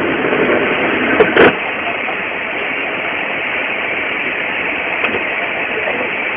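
Steady rushing noise in the cockpit of a Dassault Falcon 50EX during takeoff, from its three turbofan engines at takeoff power and the airflow. Two brief sharp knocks come a little over a second in.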